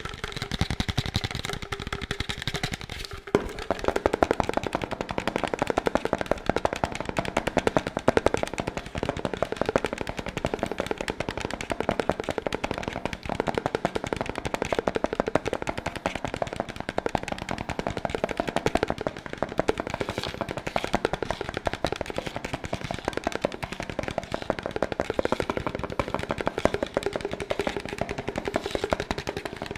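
Fast fingertip tapping on a black plastic tub held right at the microphone: a dense, continuous stream of quick taps, with a brief dip about three seconds in.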